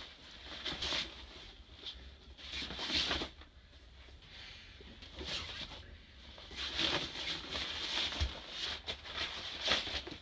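Rustling of a fabric stuff sack and the handling of hiking shoes as they are pulled out of it, in irregular swishes with a few soft knocks.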